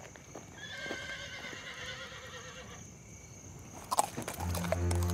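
A horse whinnying in one long, slightly falling call, then a few hoof clops about four seconds in. A low, steady music drone comes in near the end.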